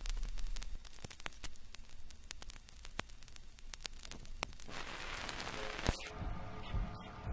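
Record-style static crackle: scattered clicks and hiss over a low hum, swelling into a wash of hiss near the five-second mark. About six seconds in, slowed, muffled music with reverb begins.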